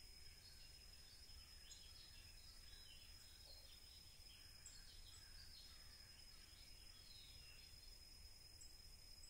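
Near silence: faint outdoor ambience with scattered bird chirps and a steady high-pitched insect drone.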